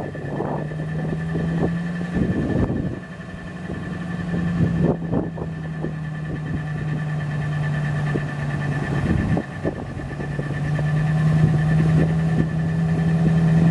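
A 2004 Ford F-250's gasoline engine idling steadily, with a few clunks and knocks over it.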